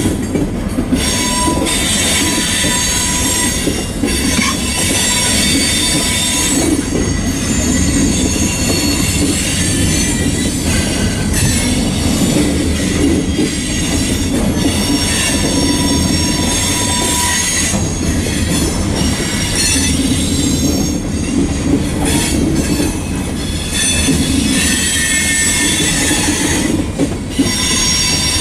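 Covered hopper cars of a freight train rolling past close by: a steady rumble of steel wheels on the rails, with high-pitched wheel squeal that fades and returns.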